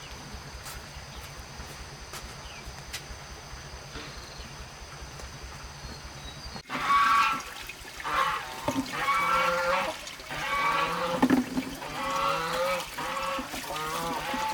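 A steady background hiss with a faint high whine. About two-thirds of the way through it cuts abruptly to loud, repeated calling from farmyard waterfowl.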